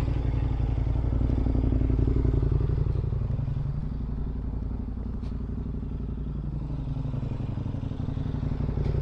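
Dual-sport motorcycle engine idling steadily. Its idle sags for a few seconds about a third of the way in, then picks back up near the end.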